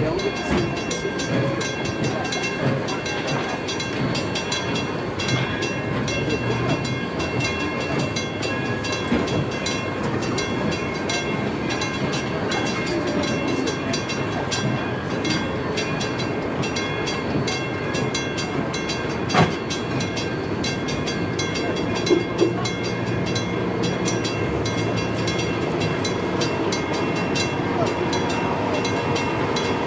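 Steam excursion train rolling by on the rails: a continuous dense rattle of wheels and running gear with a faint steady ringing tone, and a few sharper clanks about 19 and 22 seconds in.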